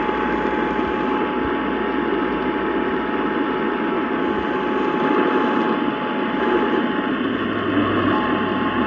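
Radio receiver static: a steady hiss with a faint constant whistle tone and no programme audio. A low hum joins for about a second near the end.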